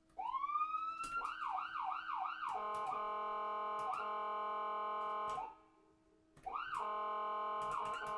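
Electronic siren sound effect: a wail that rises in pitch, then about three quick up-and-down sweeps, then a steady held tone. It cuts off about five and a half seconds in and starts again a second later with another sweep into a held tone.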